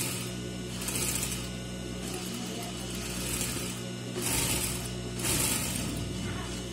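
Sewing machine stitching through fabric in several short runs, over the steady hum of its motor.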